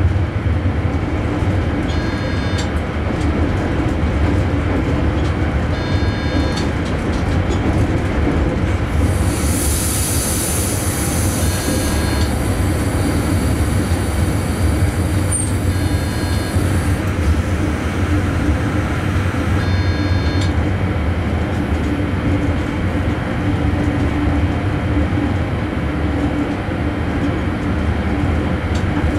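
Electric train running along the line, heard from the driver's cab: a steady low rumble of wheels on rail, with a brief higher hiss from about nine to twelve seconds in.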